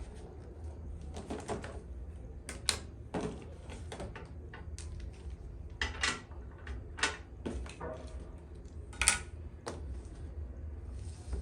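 Irregular light clicks and knocks of small household objects being handled and set down, about a dozen in all, over a steady low hum. The loudest knock comes about nine seconds in.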